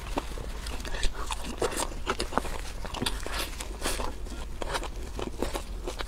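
Close-miked eating: chewing and biting into spicy seafood, with many small wet clicks and crunches from the mouth.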